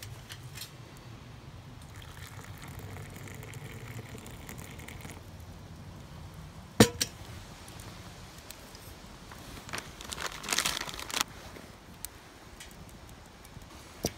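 Camp cookware being handled: a single sharp metal clink about seven seconds in. About ten seconds in comes a short rattling hiss of dry rice poured into a steel cooking pot.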